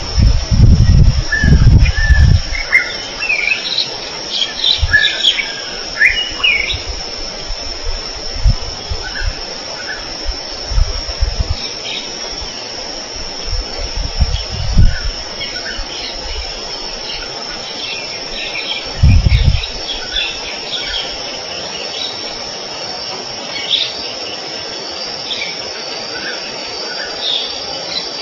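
Wild outdoor chorus of insects holding one steady high drone, with scattered short bird chirps and calls over it. Low rumbles on the microphone in the first couple of seconds and again briefly about two-thirds of the way through.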